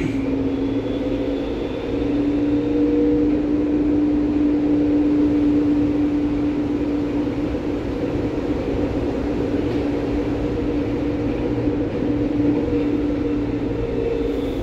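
Berlin U-Bahn class H train running on the U8, heard from inside the car: a steady rumble of wheels on rail under a traction-motor hum that holds one pitch, the train cruising at a steady speed. The rumble grows a little louder about two seconds in.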